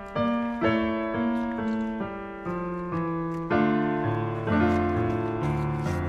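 Background piano music: a slow melody of single struck notes over low bass notes, each note ringing and then fading.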